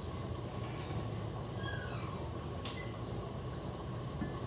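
Steady low background hum, with a faint falling whine about one and a half seconds in and a light click a little after the middle.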